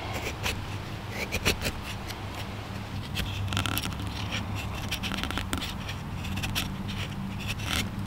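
Hatchet blade scraping thin shavings off a resinous pine fatwood stick in quick, irregular strokes, making tinder for fire lighting.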